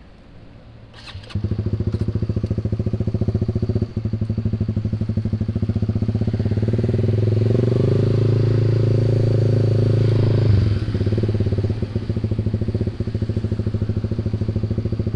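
Honda Sonic 150R's single-cylinder four-stroke engine running through a WRX GP5 MP1 aftermarket exhaust while riding under steady throttle. The exhaust note comes in suddenly about a second in, climbs a little in pitch, and drops back about ten seconds in as the throttle eases.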